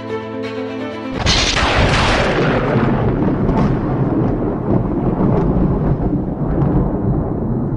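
Held string music gives way about a second in to a loud thunderclap, a sudden crash that fades into a long, steady rumble.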